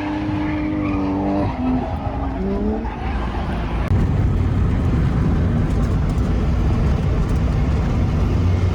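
A car engine held at steady revs, with the revs changing in short rises between about one and a half and three seconds in. From about four seconds in it settles into a louder, deeper running rumble.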